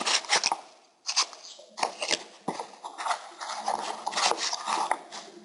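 Hands rummaging in a small handmade miniature dresser prop to get a mask out of it: irregular rubbing, scraping and light knocks close to the microphone, with a short pause about a second in.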